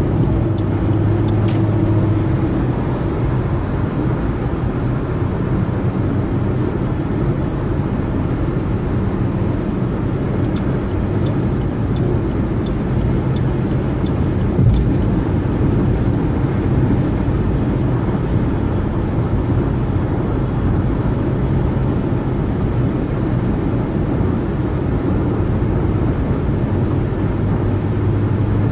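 Car driving at freeway speed: steady tyre and road noise with a low engine drone, and a single thump about fifteen seconds in.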